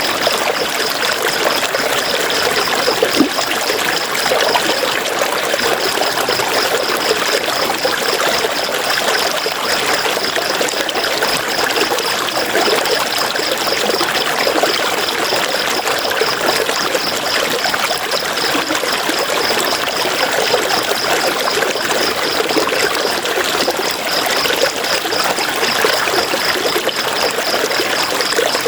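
River water flowing steadily, an even continuous rush. Over it runs a high-pitched, fast pulsing trill that breaks off twice, briefly.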